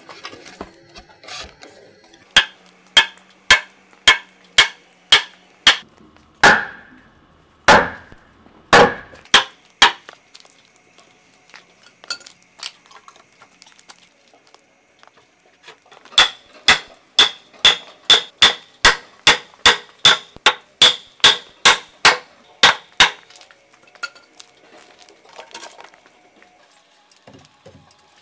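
Hammer blows in runs of steady, evenly spaced strikes with pauses between them, the fastest run about three blows a second.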